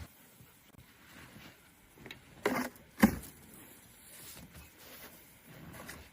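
Two knocks about half a second apart, a little past halfway through, the second sharper and louder, over a faint steady hiss.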